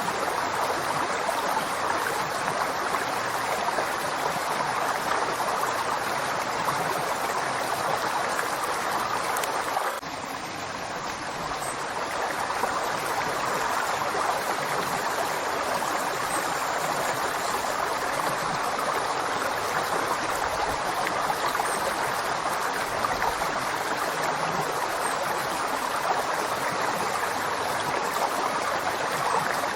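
River water flowing steadily over stones, an even rushing and gurgling. About ten seconds in it briefly turns quieter, then builds back over a couple of seconds.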